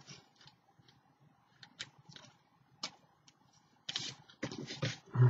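Paper and craft materials being handled on a tabletop: scattered light rustles and taps, then a short spell of paper rustling near the end that finishes with a dull thump.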